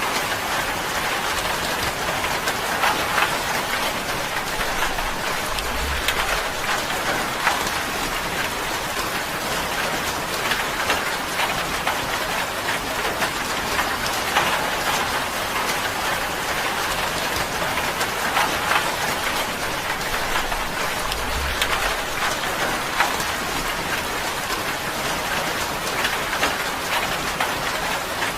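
Steady rain falling on a tin roof, a dense, even run of small drop ticks on the metal.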